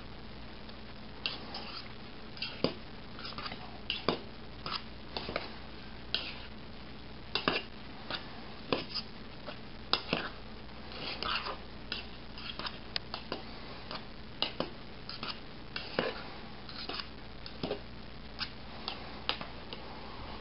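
Metal spoon and fork clinking and scraping against a stainless steel cup while stirring cooked noodles, in irregular light clicks about once or twice a second.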